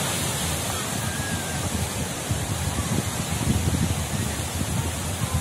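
Surf washing onto a sandy beach, heard as a steady rushing noise, with wind buffeting the microphone in low gusts.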